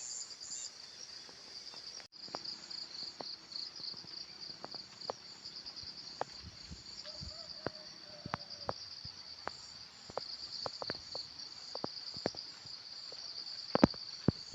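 Insect chorus: a steady, high, pulsing trill of many insects chirping, with scattered sharp clicks and taps and two louder ones near the end. The chorus briefly cuts out about two seconds in.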